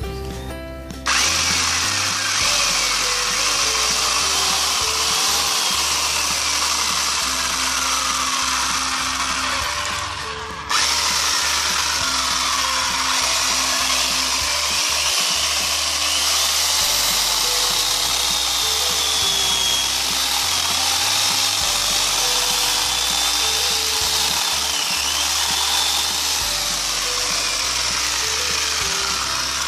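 Crafix 710-watt electric chainsaw running free with no load, its motor and chain making a steady whirring. It stops for a moment about ten seconds in, then starts again and runs on.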